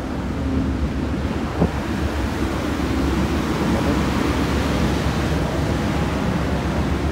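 Steady low rumble and rushing noise from a standing Amtrak passenger train, with wind on the microphone; a single brief knock about one and a half seconds in.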